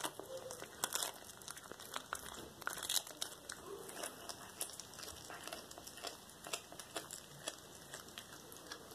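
A domestic cat eating a whole raw rat: irregular wet crunches, crackles and tearing as it bites and chews through the prey, several crunches a second.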